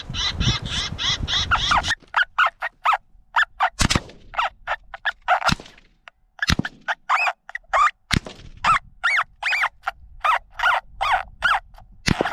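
FoxPro X24 electronic predator call playing a bird-like distress sound through its speaker: short squawking calls repeated about two to three times a second. A few sharp knocks cut through it.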